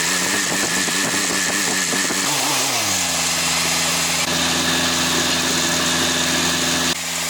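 Vehicle engine running, its pitch wavering unevenly at first, then dropping about three seconds in and settling into a steady idle.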